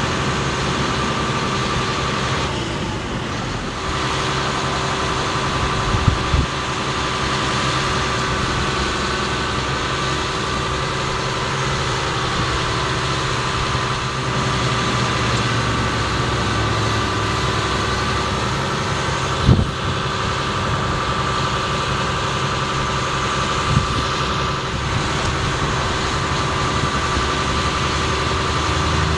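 Ford F750 bucket truck's engine running steadily while the Altec aerial device's hydraulics raise and swing the boom, with a steady whine over the engine. Three short knocks come about six, twenty and twenty-four seconds in.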